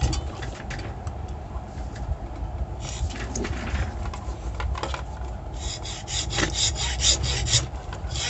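Hacksaw cutting into the secondary winding of a microwave oven transformer, the blade rasping back and forth. The strokes are light and irregular at first, then about halfway through settle into a quick, even run of about four strokes a second.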